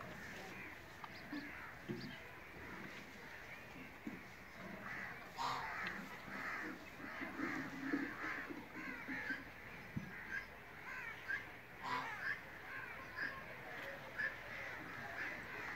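Birds calling over and over: many short, high calls following one another in quick succession.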